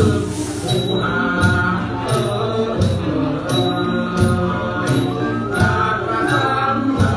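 Thai classical ensemble music with several sustained pitched melodic lines over a steady beat. The beat is marked by a sharp high strike about every 0.7 s.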